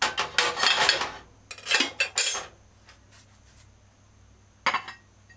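Metal spoon scraping and clinking against a ceramic bowl as stew is spooned out onto a plate, in several quick bursts over the first two and a half seconds. One more short clink comes near the end.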